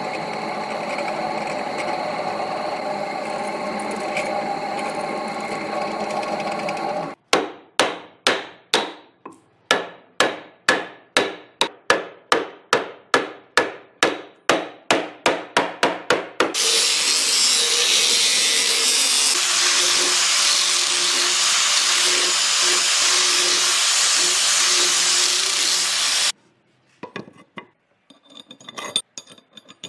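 Woodworking tools at work: a power tool runs steadily, then a hammer strikes wood in a long run of blows that speed up from about two to about four a second. A power tool with a loud, high hiss follows, and it stops suddenly near the end, leaving a few light knocks.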